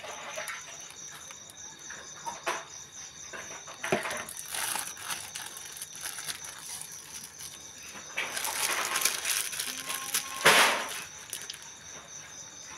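Thin plastic ice bag crinkling and rustling as it is filled with liquid chocolate ice-cream mix and its neck is gathered and twisted shut, with small splashes of water in the basin. The rustling comes in irregular bursts, a longer one late on and the loudest a sharp crackle near the end.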